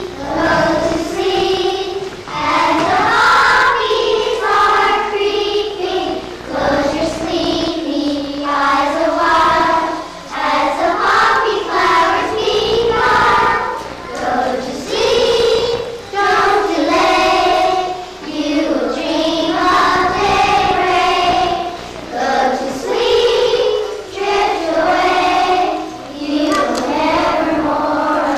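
Children's choir singing together in unison, in sung phrases of a second or two with short breaks between them.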